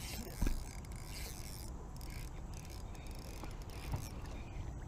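Spinning reel being cranked to retrieve line, a steady mechanical whir over a low rumble, with a short knock about half a second in and a fainter one near the end.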